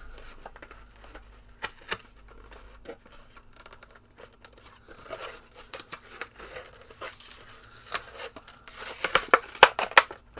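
Packaging being torn and crinkled open by hand to free a figure's trading card and flight stand: scattered rustles and clicks, with a louder burst of tearing and crackling near the end.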